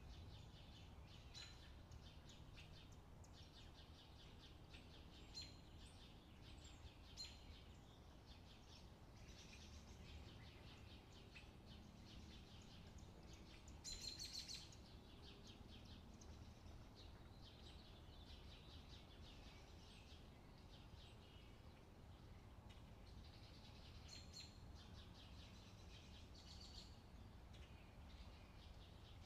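Faint chirping and twittering of small songbirds in short repeated trills, over a low steady background rumble, with one brief louder burst about halfway through.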